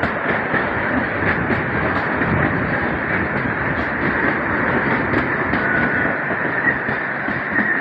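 Kalka–Shimla narrow-gauge toy train rolling along, with a steady rattle and clatter of wheels on the track and the coach bodywork, heard from outside the coach window.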